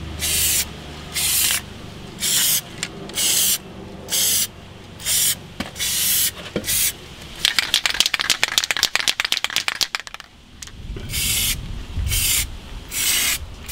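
Aerosol can of heat-resistant paint spraying in short hissing bursts, about one a second. Midway it gives way to a rapid rattle lasting a couple of seconds, the can being shaken with its mixing ball clattering inside, before the bursts resume.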